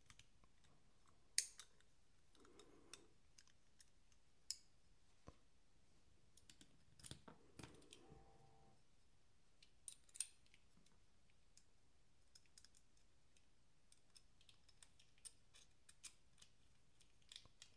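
Faint, scattered small clicks and taps of a Quiet Carry IQ-L folding knife's metal parts being handled during reassembly, with long near-silent stretches between them. The sharpest click comes about a second and a half in, and another comes about ten seconds in.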